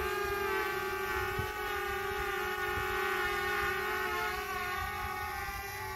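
Small quadcopter drone flying low, its propellers giving a steady buzzing whine whose pitch wavers slightly as it manoeuvres.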